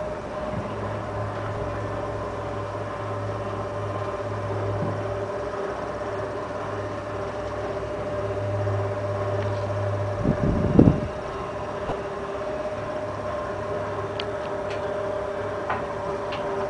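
Facade cleaning machine's electric motor running with a steady hum and whine. About ten seconds in there is a brief low rumble, the loudest moment, and a few faint clicks follow.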